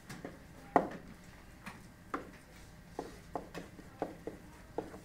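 A series of short, sharp clicks and taps, about nine of them at uneven intervals, the loudest about a second in.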